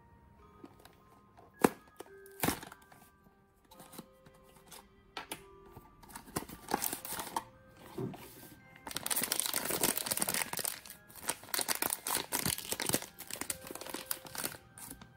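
A plastic blind-box pouch being crinkled and torn open by hand, a dense crackling that builds from about six seconds in and is loudest from about nine seconds on. Two sharp taps come about two seconds in, under soft background music.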